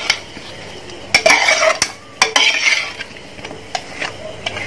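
Stainless steel spatula stirring chicken 65 in thick masala around a metal pot: scraping strokes against the pot's base and sharp metal-on-metal clinks, with a light sizzle from the pan.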